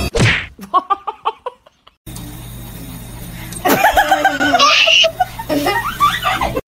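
Human laughter: a quick run of short laughing pulses right at the start, then after a brief silence a longer stretch of laughing from about halfway.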